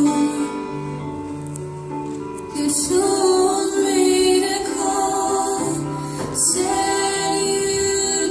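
Song with a female lead vocal over accompaniment, heard as the dance music; it grows louder and fuller about two and a half seconds in.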